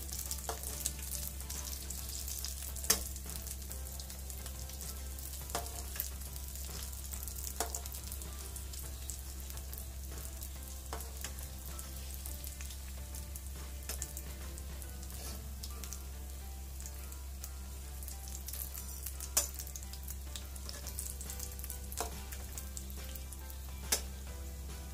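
Samosas deep-frying slowly in hot oil over a low flame: a steady soft sizzle with a few sharp pops or clicks, the loudest about three seconds in and again near twenty seconds.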